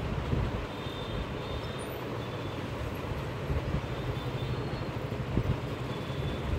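Steady low rumble and hum of street background noise, with no clear speech.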